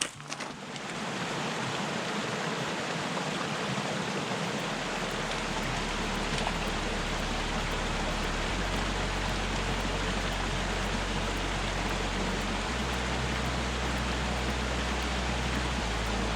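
Steady rush of running water, a constant hiss across all pitches that swells in about a second in and then holds. A low steady drone joins about five seconds in and shifts in level a few times.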